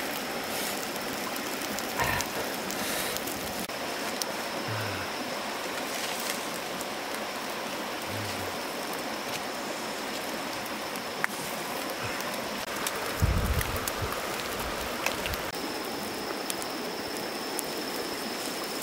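Steady rush of a stream running over rocks, with a few small ticks and soft low thumps and a thin, steady high whine behind it.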